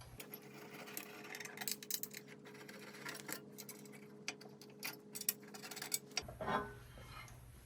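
Scattered light clicks and taps of small metal parts and a hand tool as the cover is taken off a wire bonder's force motor, over a faint steady hum.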